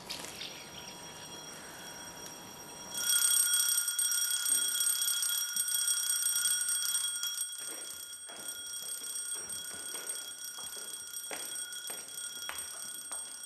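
Wall-mounted electric bell starting about three seconds in and ringing steadily without a break, the bell that calls the nuns to prayer. A few soft knocks sound under it in the second half.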